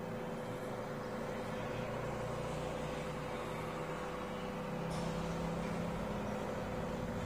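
Steady low hum and rumble of background noise with a constant tone, with the rumble growing slightly louder about five seconds in and one faint click.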